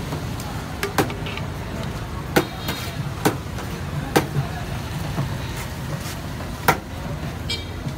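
A serving plate knocking sharply against a large aluminium cooking pot as rice is scooped out, about five times, over a steady low rumble of street traffic.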